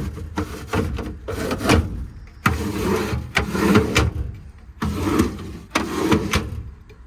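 Metal service-body drawers on ball-bearing slides being pulled open and pushed shut one after another: short sliding runs with clicks and knocks.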